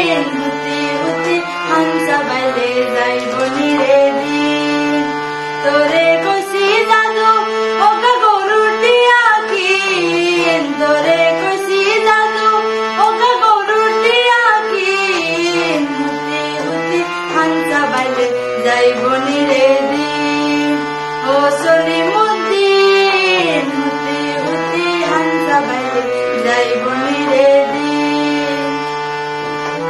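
A woman singing a Bengali folk song in the Noakhali dialect, accompanying herself on a harmonium that holds steady chords under her melody.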